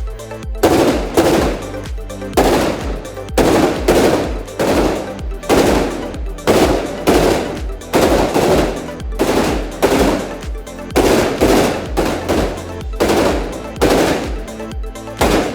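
Rapid semi-automatic fire from a suppressed Ruger 10/22 .22 rifle, about two shots a second without a break, over background electronic music with a steady bass.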